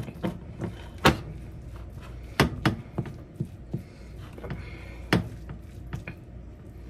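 About a dozen sharp taps and knocks from a seasoning shaker and utensil against a food container, irregularly spaced with a quick run in the middle. The loudest come about a second in, at about two and a half seconds and just after five seconds.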